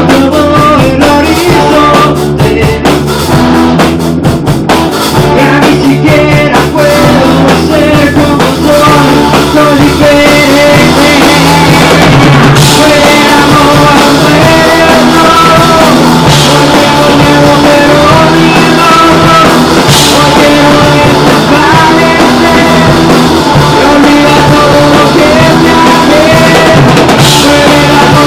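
Small rock band playing live and loud in a small room: electric guitar, bass and drum kit, with a male voice singing and a few cymbal crashes.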